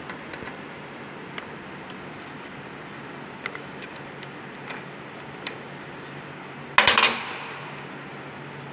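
Steel spanner clicking and tapping against a nut and the lathe's cast-iron apron while a bolt is loosened, a few scattered metallic ticks, then one loud metallic clank with a brief ring near the end.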